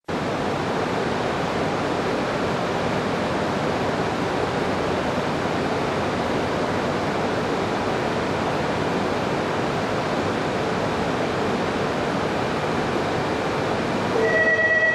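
Steady, even roar of an underground railway platform's ambience. Shortly before the end a high, steady tone with overtones begins and the sound grows louder.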